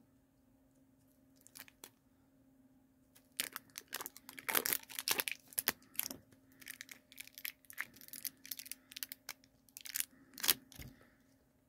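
Crinkly packaging of a blind-bag pencil-topper toy being torn and crumpled open by hand, a wrapper that is hard to open. Almost nothing for the first three seconds or so, then a run of quick crackles and rips.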